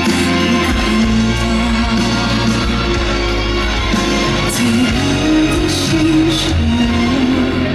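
A woman singing a song with band accompaniment, holding long notes that glide between pitches.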